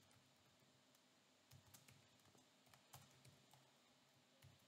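Faint computer keyboard typing: a few scattered keystrokes in small clusters against near silence, around one and a half, three and four and a half seconds in.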